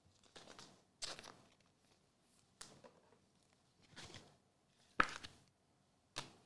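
Trading card being slid into a clear plastic sleeve and handled: about six short plastic rustles and scrapes, the loudest a sharp one about five seconds in.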